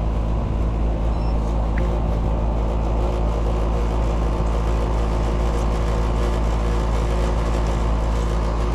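Outdoor split-system air-conditioning condensing unit running close up: the compressor hums steadily under the condenser fan's whoosh, with no change in level.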